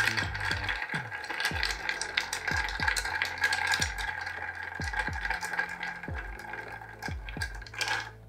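Ice cubes clinking and rattling against a crystal mixing glass as a barspoon stirs them steadily round, a fast continuous patter that eases off near the end.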